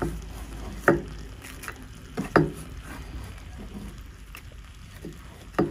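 Pork frying quietly in a pan, with three soft knocks, about a second in, two and a half seconds in and near the end.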